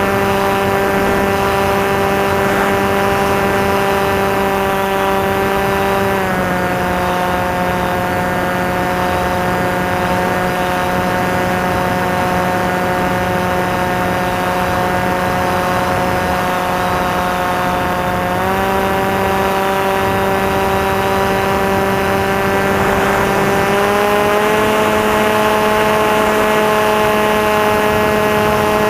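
Electric motor and propeller of a Maxi Swift FPV plane running steadily in flight, heard onboard as a loud hum with a whine. Its pitch drops a step after about six seconds, then rises again in two steps later on as the throttle changes.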